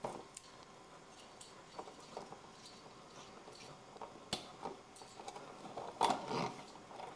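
Small clicks and rustles of hands working at a toy's packaging, with a sharp click about four seconds in and a louder rustle around six seconds.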